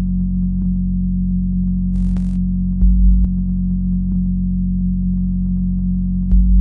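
Electronic background music: a steady low synthesizer drone with a deep bass pulse about every three and a half seconds and faint ticks, and a short hiss about two seconds in.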